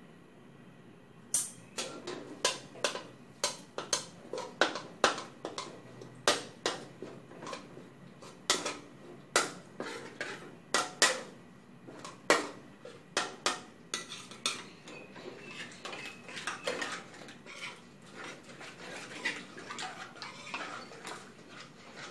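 Metal wok spatula clacking and scraping against a metal wok, about one or two strikes a second, as red curry paste is mashed into coconut milk to dissolve it. The sharp strikes give way to softer, continuous scraping and stirring over the last several seconds.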